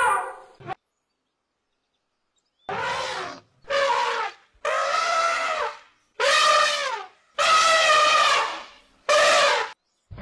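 Elephant trumpeting: six loud, brassy calls in a row, each from half a second to over a second long, some dropping in pitch as they end, after a short silence.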